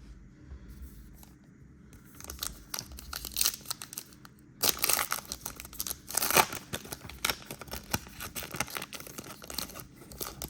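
Plastic foil trading-card pack wrapper crinkling and tearing as it is handled and opened. It starts faintly about two seconds in and turns into loud, dense crackling from about halfway on.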